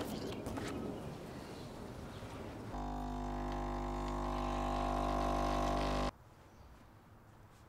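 Capsule coffee machine's pump humming steadily while it brews coffee into a mug, starting about three seconds in, growing slightly louder, and cutting off abruptly a few seconds later. Before it there is only a faint background with a few light clicks.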